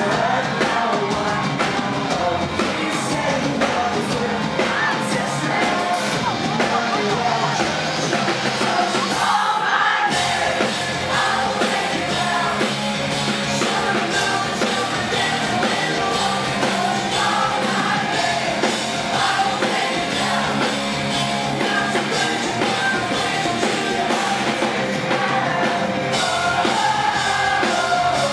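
Pop-punk band playing live at full volume: electric guitars, drums and a male lead singer, with a brief break about ten seconds in.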